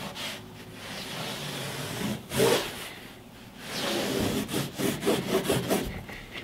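Felt-tip marker scratching along cardboard as a sketched curve is gone over, with one longer stroke a couple of seconds in and a quick run of short back-and-forth strokes near the end.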